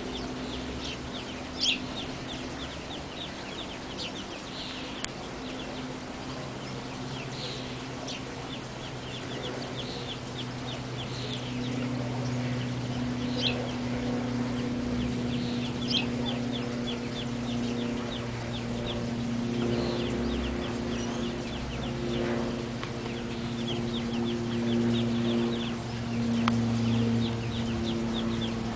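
Young ducklings peeping continuously, many short high falling peeps a few per second, over a steady low hum.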